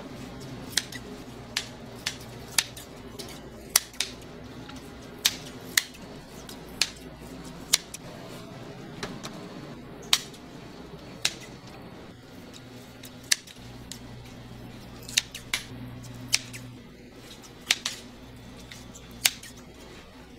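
Kitchen shears snipping, one sharp click after another about once a second, irregularly spaced, over a steady low background hum.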